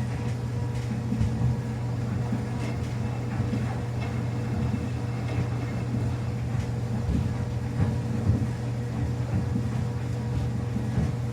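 Samsung front-loading washing machine running a quick wash: a steady low motor hum with irregular soft thumps as the wet towels tumble in the drum.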